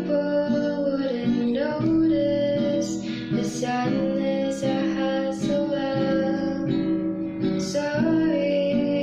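Background music: plucked acoustic guitar playing a gentle melody, with notes changing about every second.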